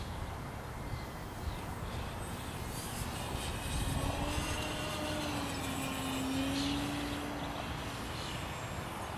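Electric RC model airplane flying past, its Power 32 brushless motor and 11x10 APC propeller giving a steady whine. The whine comes in about three seconds in, grows louder, wavers slightly in pitch, and fades out about eight seconds in.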